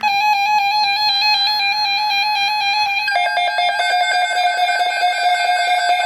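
Emergency alert tone on a weather radio broadcast, sounding ahead of a severe thunderstorm watch message. A loud, buzzy electronic tone starts abruptly and holds steady for about three seconds, then drops slightly in pitch and pulses rapidly.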